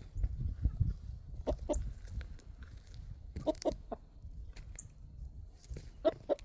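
Chickens clucking in short bursts of two or three clucks, over a low rumble.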